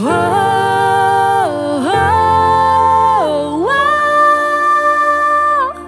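A woman singing long held notes that slide up and down between pitches, three phrases with the last one the highest and longest, over a sustained low accompaniment in a Mandarin pop ballad.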